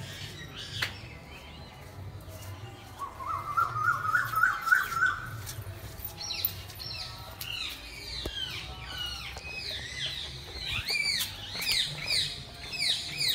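Birds calling: a warbling trill that rises in pitch a few seconds in, then a quick run of many repeated high chirps through the second half.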